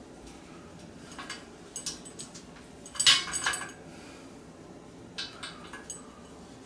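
Small scattered metal clicks and clinks as an Allen key turns screws into the joints of a metal tube stand, with the loudest cluster about three seconds in.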